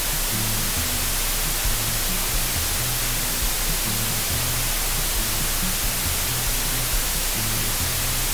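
Background music of low bass notes that change every second or so, under a steady hiss.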